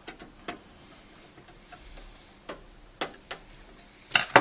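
Scattered sharp clicks and knocks from hands handling the reassembled desktop computer case, with a louder quick cluster of clicks near the end.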